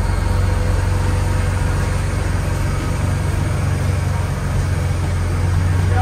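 Jeep Wrangler engine idling steadily with the hood off.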